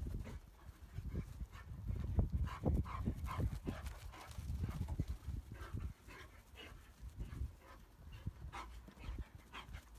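Irish wolfhound puppies and their mother at play: dog panting and short whines over irregular low thumps.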